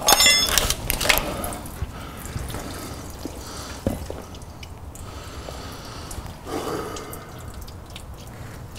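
Transmission fluid dripping and running out of the transmission where the CV axle has just been pulled free of its seal. A few sharp clicks come in the first second and a single knock about four seconds in.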